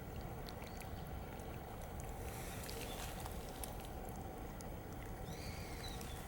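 Water trickling and moving beneath a sheet of ice, over a steady electronic hum and hiss from a cheap digital camera, with small scattered clicks. A brief high chirp sounds near the end.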